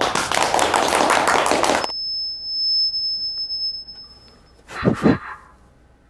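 A few people applauding for about two seconds. Then a high steady beep lasts about two and a half seconds, and two quick thumps on a microphone come about five seconds in.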